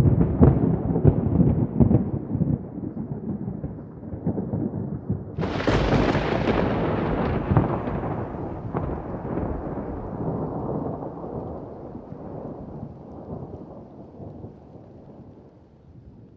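Thunder: a loud crackling rumble starts suddenly, then about five seconds in a sharp crack of close thunder rolls and slowly rumbles away.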